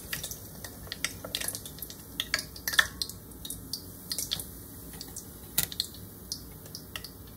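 Irregular crackling and popping of freshly fried tempura draining off hot oil, with light clicks as chopsticks set pieces onto a metal wire draining rack.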